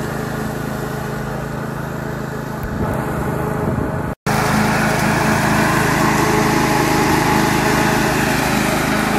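Duricut 820 walk-behind lawn mower's 159cc petrol engine running steadily under load as it cuts grass. The sound drops out for a split second about four seconds in, then the engine comes back louder and brighter.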